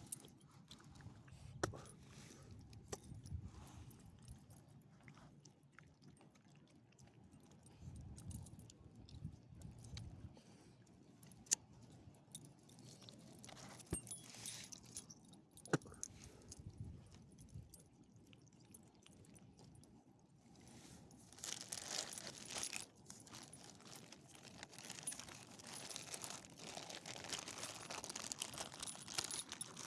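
Faint jingling of small metal pieces with scattered light clicks, and a rustling crunch that sets in about two-thirds of the way through.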